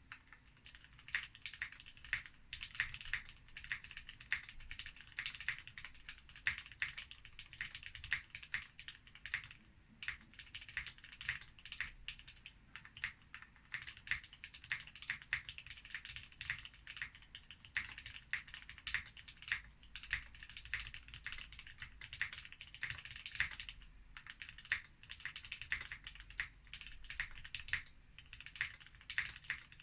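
Typing on a prototype Sleepy60 mechanical keyboard with a polycarbonate case, Krytox 205g0-lubed Gateron Ink linear switches and a POM plate: a fast, steady run of key presses, several a second, with brief pauses about ten and twenty-four seconds in.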